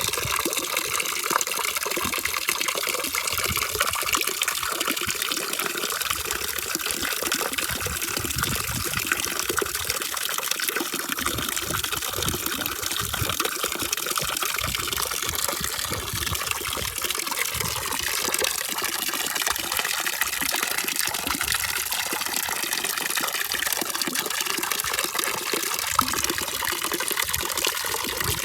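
Steady rushing of running water: an even, unbroken hiss with no pauses, used as sleep noise. One small tick sounds near the end.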